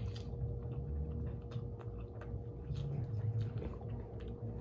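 A person chewing a mouthful of food, with small scattered mouth clicks over a soft low rumble.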